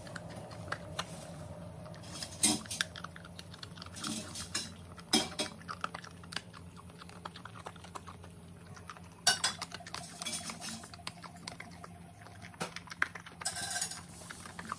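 A large dog eating dry kibble from a wooden bowl: irregular crunches as it chews, with pieces knocking against the bowl as it noses through them.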